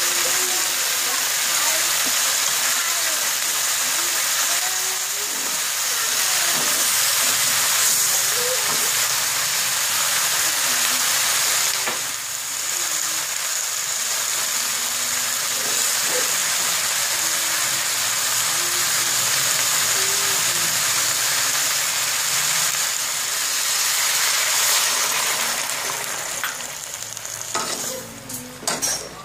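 Bitter gourd and roasted pork sizzling steadily in a hot pan as they are stir-fried with a wooden spatula. Near the end the sizzle drops away and there are a few knocks.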